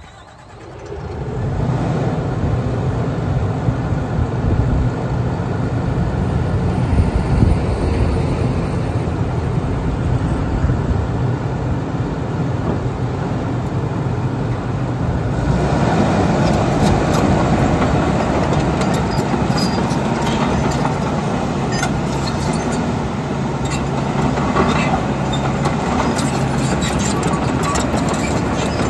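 Caterpillar D6K2 LGP crawler dozer's diesel engine running steadily as the machine drives, coming up about a second in. From about halfway, clanking and squeaks of the steel tracks sound over the engine.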